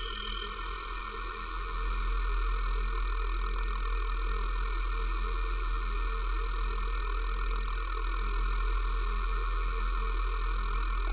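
Electronic sound-art drone: a deep steady hum under layered, sustained tones. It grows a little louder about two seconds in.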